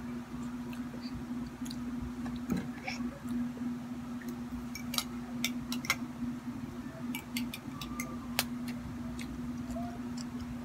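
Metal spoon clinking and scraping in a ceramic coffee mug while coffee-soaked bread is scooped out: a run of light clicks, thickest past the middle, over a steady low hum.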